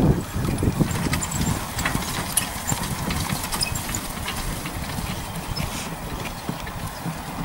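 A harnessed horse trotting on grass while pulling a four-wheeled carriage: dull hoofbeats with the light rattle and clicks of the carriage, fading as it moves away.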